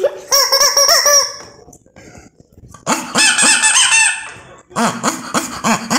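Rubber chicken toy squeezed, giving a loud warbling squawk. About three seconds in, a talking-pet app on a phone plays the squawk back at a higher pitch. Near the end comes a run of short, lower squeaks.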